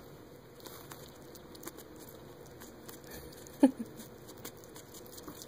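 African pygmy hedgehog chewing a piece of fish fillet: a run of faint small clicks, with one short louder sound falling in pitch about three and a half seconds in.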